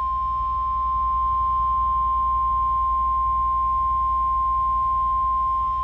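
NOAA Weather Radio 1050 Hz warning alarm tone, a single steady high-pitched beep held unbroken, played through a weather radio's speaker over a low hum. It is the attention signal that comes before a National Weather Service tornado watch message.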